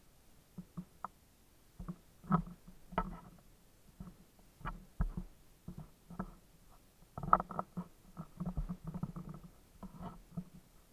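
Footsteps on wooden boardwalk planks: irregular short knocks, a few a second, coming thicker about seven seconds in.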